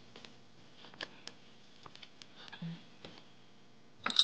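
Scattered light clicks and taps of items being handled and set into a plastic basket, then near the end a sharper, louder metallic clink of a metal dish or vessel.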